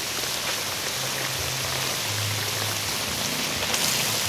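Steady sizzling and bubbling of pork pieces simmering in a vinegar broth in a large wok, with a spoon stirring near the end.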